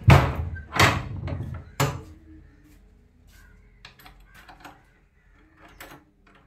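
Carved wooden double door and its brass bolts being worked by hand. There are three loud clunks in the first two seconds, then softer clicks and rattles of the metal fittings.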